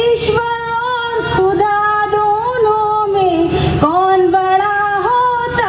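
A young woman singing a Hindi children's poem solo, in long held notes that step and bend between phrases.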